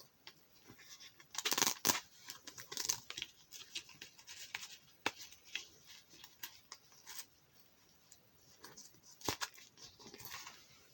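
Rustling and crinkling of packaging being handled, with scattered small clicks and knocks; the loudest rustle comes about one and a half to two seconds in.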